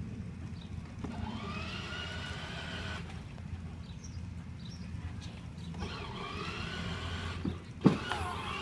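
Electric motor and gearbox of a battery-powered ride-on toy car whirring as it drives, with a whine that rises as it gets going, twice. A sharp loud knock near the end.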